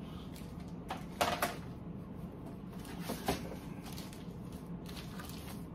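A few short knocks of hard plastic comic-book grading slabs being handled, set down and picked up, the loudest a little over a second in, over a steady low hum.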